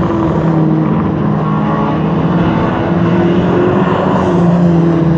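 Engines of a pack of saloon race cars running round an oval tarmac track. The engine note stays steady, wavering only a little in pitch.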